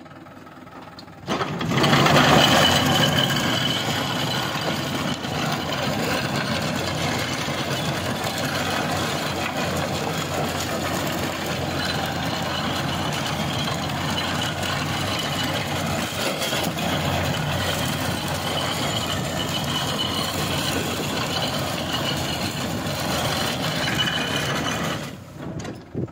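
A tractor's diesel engine under load drives a ten-year-old rear-mounted rotavator through dry soil, making a loud, steady churning and clattering. The noise jumps up suddenly about a second and a half in, as the rotavator gets working, and falls away just before the end.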